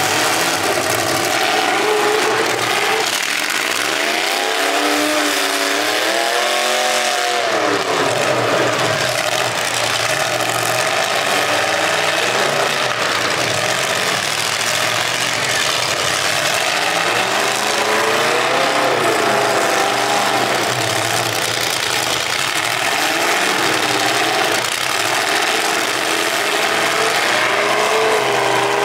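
Demolition derby cars' engines revving over a steady loud din of several engines running at once. The revs swing up and down in pitch several times, most strongly a few seconds in.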